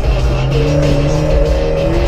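Music playing loud on the car's stereo inside the cabin of a Fiat 500 Abarth, over its 1.4-litre turbocharged four-cylinder engine being driven hard.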